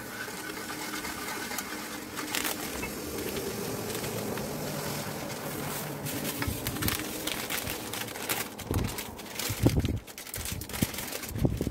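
Granulated sugar poured from a plastic bag into warm water in a metal pot and stirred in with a wooden spatula, with crinkling of the plastic bag and scattered clicks and knocks. There are a few louder thumps near the end.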